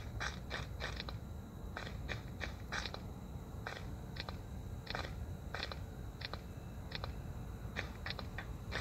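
A string of short, sharp clicks or taps at an uneven pace, roughly two a second, over a low steady hum.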